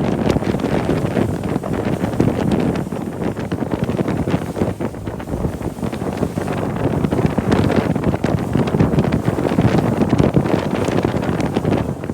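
Wind buffeting the microphone: a loud, gusting rumble and crackle.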